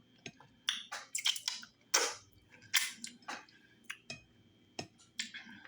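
Wet eating sounds close to the microphone: chewing and lip smacking on a mouthful of fufu with slimy okra stew, a string of irregular sharp smacks and squelches, loudest about two seconds in.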